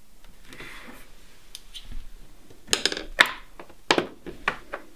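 Handling noise at a painting table: a faint rustle, then about five sharp small clicks and knocks in the second half as plastic paint pots and brushes are handled and set down.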